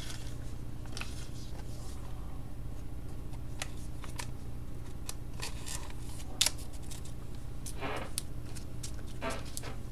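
Faint rustles and small clicks of trading cards being handled, over a steady low hum, with one sharper click about six and a half seconds in.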